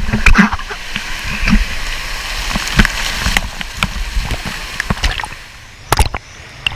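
Water sloshing and splashing around a GoPro, heard through its waterproof case, with frequent sharp knocks and low bumps against the housing and a strong pair of knocks near the end.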